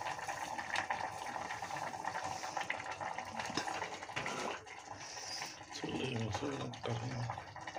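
Granulated sugar poured from a cup into a metal pot of cooking vermicelli with a soft pouring hiss, then a spoon stirring it in, with light scrapes and clicks against the pot.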